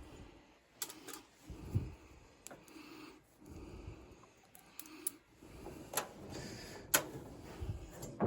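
Scattered light clicks and knocks of small parts and hand tools being handled, with one louder knock about two seconds in.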